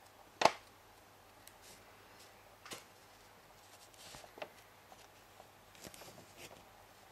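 Handling noises of a paper instruction booklet held close to the microphone: a sharp tap about half a second in, then a few quieter taps and short rustles.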